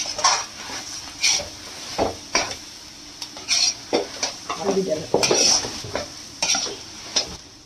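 Metal spatula scraping and stirring a mashed-potato filling around a metal kadhai in a dozen or so uneven strokes, over the steady sizzle of the filling frying in oil.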